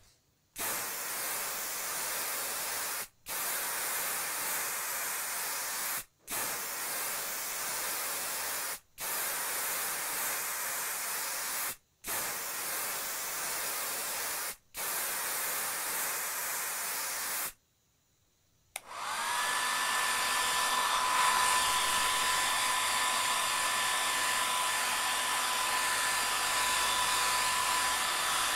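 Steady rushing air noise in repeated stretches of about two and a half seconds, broken by short gaps. After a brief silence, a vacuum cleaner motor spins up and runs steadily with a high whine over the rush of air.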